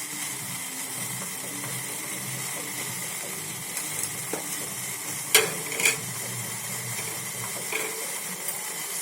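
A pan of water heating on a stove with a steady hiss. Two sharp clinks come a little past the middle, and a fainter one later, as whole spices go into the pan.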